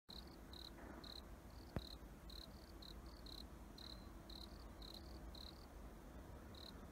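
Crickets chirping in short, even chirps at two slightly different high pitches, about two a second. A single sharp click sounds about two seconds in.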